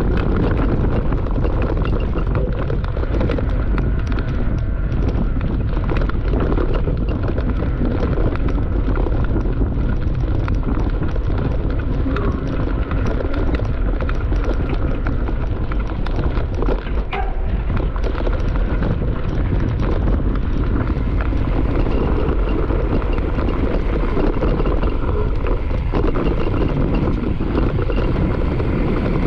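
Mountain bike descending a dirt trail at speed: tyres rolling over dirt and roots, with the chain and frame rattling in dense clicks and knocks over the bumps, and wind buffeting the microphone.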